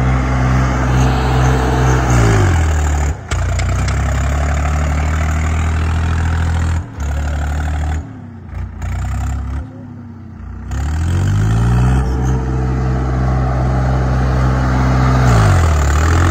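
Swaraj 744 XT tractor's three-cylinder diesel engine working hard at high revs. The revs drop about two seconds in and fall to a lower, quieter note around the middle. They climb back up, then dip and rise again near the end. The sound cuts out briefly twice early on.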